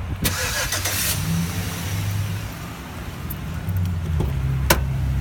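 A Chevy Silverado's engine remote-started: a short burst of cranking, then the engine fires and settles into a steady idle. Two sharp clicks near the end.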